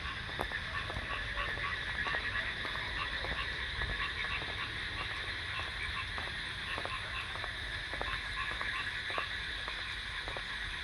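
Night chorus of crickets, a steady shrill chirring with short repeated notes pulsing through it, and scattered sharp clicks over a low rumble.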